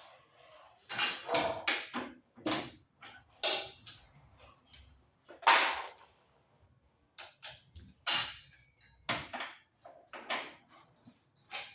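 Irregular metal knocks and clatters from tools and parts being handled, about a dozen separate strikes and scrapes, some with a short ring after them.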